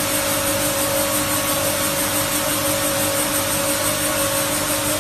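Vertical plastic color mixer running with a steady hum while plastic granules pour out of its stainless-steel discharge chute in a continuous rushing hiss.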